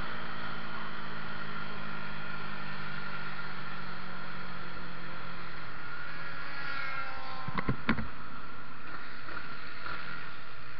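Yamaha MT-125's single-cylinder four-stroke engine running under wind noise on the bike-mounted microphone, its note slowly falling as the bike slows. Two or three sharp knocks come about seven and a half seconds in.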